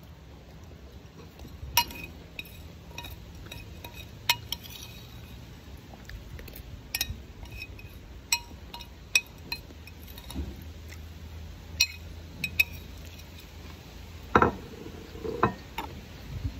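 Metal spoon clinking and scraping against a ceramic plate and a glass bowl of açaí: a scattering of sharp, separate clinks. Near the end come a few louder eating noises from the mouth.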